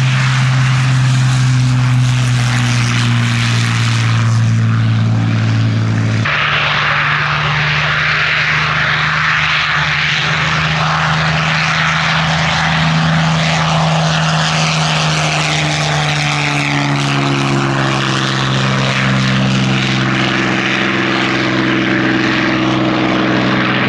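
Supermarine Spitfire's Rolls-Royce Merlin V12 engine and propeller running loud and steady. About six seconds in the sound changes abruptly to the engine at high power for the take-off run, its note rising in pitch through the second half as the aircraft lifts off.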